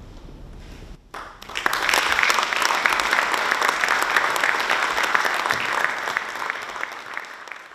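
A small seated audience applauding: the clapping starts about a second in, swells to full strength within half a second, and fades away near the end.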